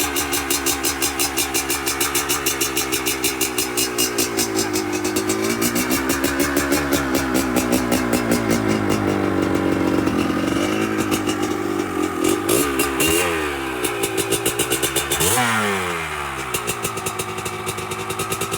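Kawasaki KDX 200's single-cylinder two-stroke engine running on its first start after a full rebuild, the fuel-air mixture not yet set. The idle wavers, with short blips of throttle about twelve seconds in and a sharper rev about fifteen seconds in that falls back to idle.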